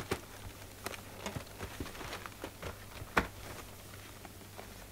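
A cloth wiping and handling a cardboard box on a counter: soft rubbing broken by scattered light taps and knocks, the loudest about three seconds in.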